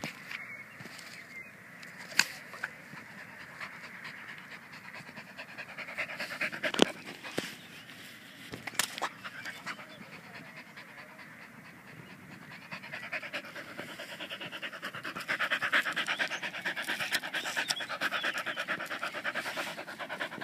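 Border collie panting close by, the panting growing louder over the last several seconds. A few sharp knocks come earlier, the loudest about seven seconds in.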